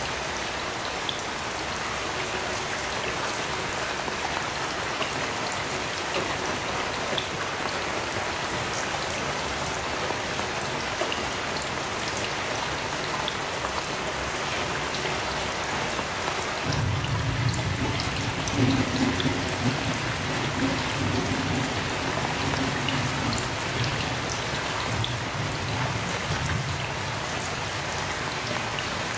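Heavy rain falling steadily, with individual drops ticking on a surface. About seventeen seconds in, a low rumble of distant thunder rolls in and lasts around ten seconds.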